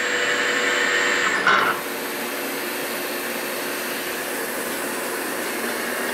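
CNC milling machine boring out a cylinder of an aluminium Lotus 910 engine block. The cutting noise ends with a brief louder burst about a second and a half in, and the machine then keeps running with a steady whir.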